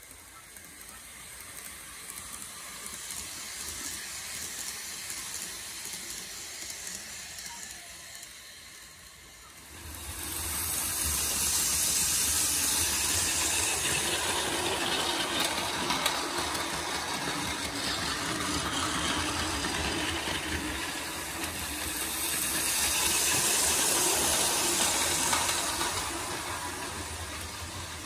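Model Kintetsu Hinotori train running past on its track, a steady hissing whir from its motor and wheels. It grows louder about ten seconds in and swells again near the end as trains pass close by.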